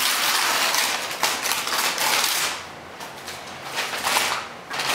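Gift-wrapping paper crinkling and tearing as a small child pulls it off a present. It is loud for the first half, quieter for about two seconds, then picks up again near the end.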